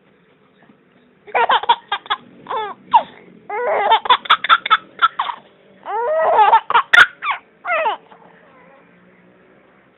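A man's loud, voiced sneezing mixed with laughter: a string of short, laugh-like bursts, then a rising, drawn-out build-up that breaks into one sharp sneeze about seven seconds in.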